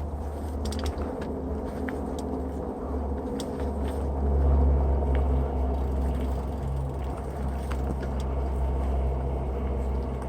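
Low wind rumble on a body-mounted camera microphone while riding a mountain bike, with tyre noise and scattered light clicks and rattles from the bike on the trail. The rumble swells about four seconds in.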